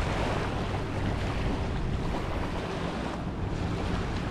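Wind buffeting the microphone over the steady wash of waves, a continuous noisy rush with a faint low hum underneath.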